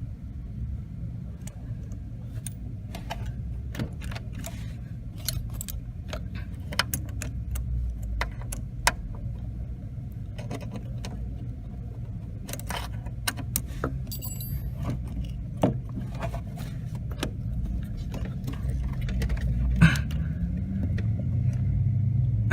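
Scattered metallic clicks and clinks of hand tools and small metal parts, with one brief high ring, as the clutch cable and its clips are worked on, over a steady low rumble.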